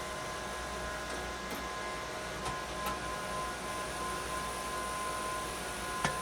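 Home-made gas fan heater running: a steady hiss of the cross-flow fan and gas burner with a faint steady hum, and a few light clicks.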